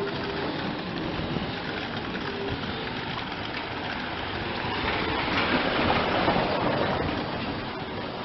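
Street tram running along its rails, heard from on board: a steady rumble and rattle of wheels on track that grows louder about five seconds in, then eases.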